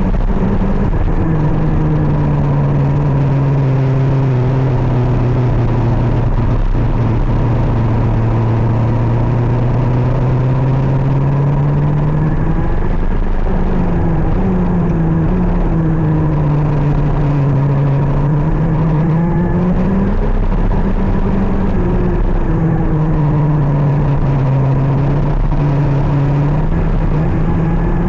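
KZ 125cc two-stroke shifter kart engine running hard on track. Its pitch sags and climbs again several times as it is driven through corners and back onto the throttle, with a sharp break in the revs about halfway.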